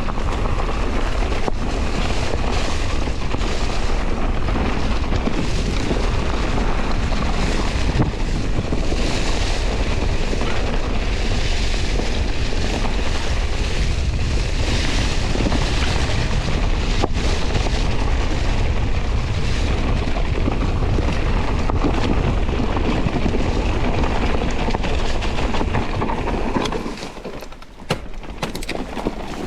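Electric mountain bike ridden down a rough trail: rushing wind on the microphone with continuous rumbling and rattling from the tyres and frame. The noise eases briefly near the end.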